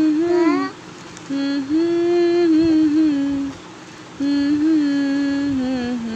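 A voice singing long held notes without clear words, in three phrases with short breaks between them; the last note slides down near the end.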